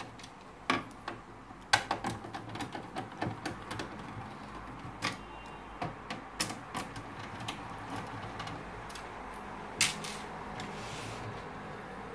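Screwdriver backing out the screws of a Samsung SCX-4623 printer's plastic rear cover: irregular sharp clicks and ticks of metal on plastic. The loudest clicks come about two seconds in and again near ten seconds.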